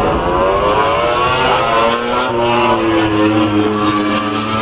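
A motor engine revving, its pitch climbing over the first second and a half and then holding high over a low steady hum.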